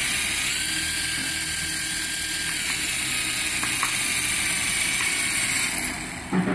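Small electric motors of a toy RC helicopter spinning its coaxial rotors at speed, a steady high whir, held in the hand. It winds down about six seconds in, with a short knock just after.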